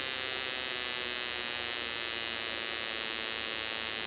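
Spark plug from a Honda CBR125R's performance-pack ignition firing in open air at about 18,000 rpm. The sparks come so fast that they merge into a steady electric buzz.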